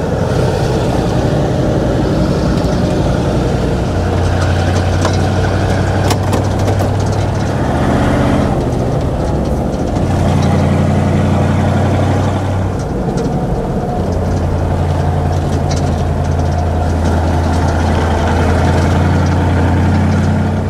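MAN KAT1 truck's diesel engine running under way on a gravel track, its low note shifting up and down in steps a few times, over steady tyre noise with small gravel clicks.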